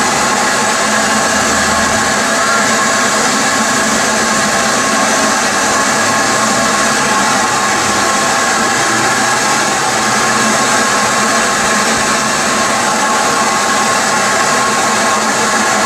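Ex-LMS Stanier Class 5 'Black 5' steam locomotive standing still and hissing steam steadily, with a few steady whistling tones in the hiss.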